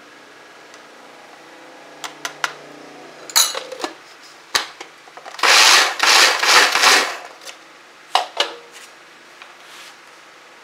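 Plastic parts of a food processor being handled and fitted together, with a few sharp clicks and a loud stretch of plastic rubbing and scraping about halfway through. The motor is not running.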